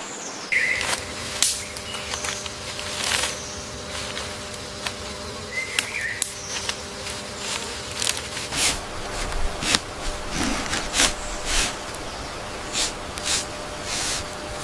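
Steady insect buzzing with many short, sharp rustling noises at irregular intervals and two brief chirps, one near the start and one about six seconds in.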